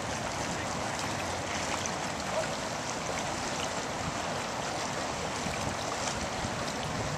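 Steady wash of water, heard from a boat out on the water.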